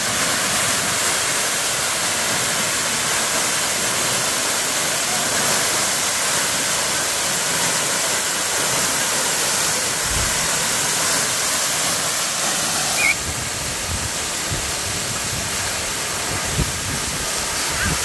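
Waterfall pouring down a rock face and splashing onto boulders and into a pool: a steady rushing hiss of falling water, which drops slightly in level about two-thirds of the way through.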